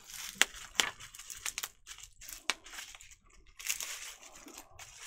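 Plastic packaging crinkling and rustling as a small part is unwrapped by hand: scattered sharp crackles, then a longer rustle near the end.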